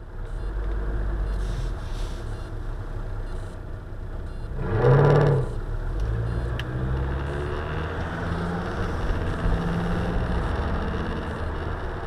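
Car driving, engine and road noise heard from inside the cabin through a dashcam. About five seconds in, the engine revs briefly, its pitch rising and falling, then it settles back into steady running.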